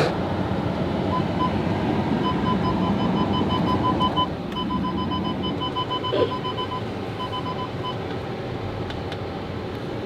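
Car cabin noise while driving slowly over a rough, broken, muddy road: a steady rumble of tyres and engine. Through most of it a repeated high electronic beeping sounds at one pitch, stopping about two seconds before the end.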